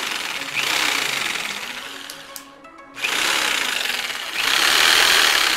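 Electric jigsaw running unloaded in the air, its motor and reciprocating blade drive making a harsh, even racket. The first run fades and stops a little before halfway, then the saw is triggered again and runs louder toward the end.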